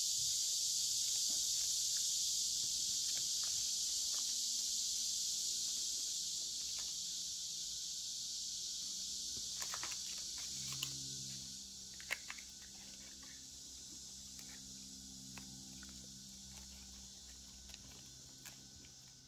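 A steady high hiss that fades away about halfway through. Under it come a few faint clicks and soft rustles of folded colour paper being glued with a wood glue bottle and pressed down by hand.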